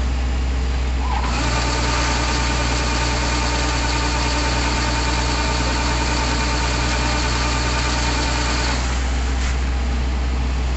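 Kubota combine harvester running steadily. About a second in, a higher mechanical whine from the grain-unloading mechanism starts up, and it cuts off abruptly near the end, as threshed paddy is discharged into sacks.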